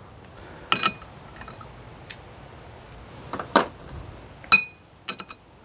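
Steel sockets clinking as a socket is picked out to fit a propeller's castle nut. There are a few separate metallic clinks; the loudest, near the end, rings briefly and is followed by a quick run of light ticks.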